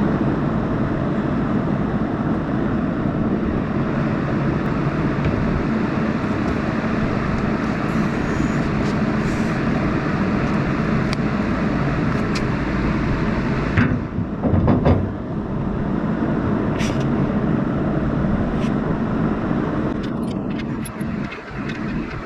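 An engine running steadily at idle, with a couple of sharp knocks about fourteen seconds in and a few light clicks near the end.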